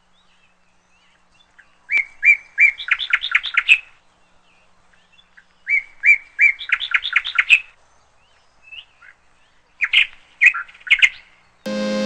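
A songbird singing the same short phrase twice, each a few level notes followed by a quick run of rising notes, then a looser group of calls. Music starts just before the end.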